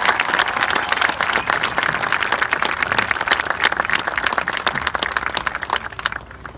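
Crowd applauding, dense clapping that dies away about six seconds in.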